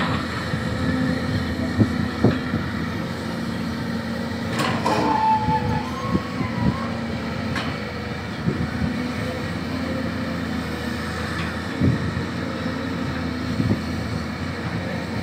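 LiuGong 939E long-reach excavator's diesel engine running steadily under hydraulic load as it digs sand, with several sharp knocks from the working machine. A brief wavering whistle-like tone sounds about five seconds in.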